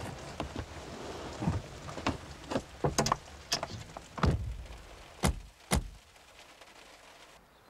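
Rain on a car body with a run of knocks and clunks from a car door being worked. Near the end come two heavy thuds about half a second apart, and the rain noise falls away after them.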